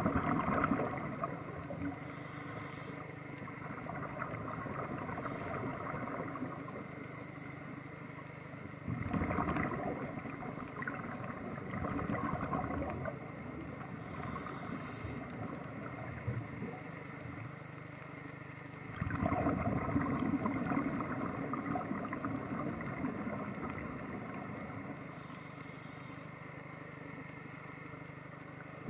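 Underwater ambience on a scuba dive: a steady low hum with the diver's regulator breathing. There are short hissing inhalations about every eleven seconds and louder rushing bursts of exhaled bubbles about nine and nineteen seconds in.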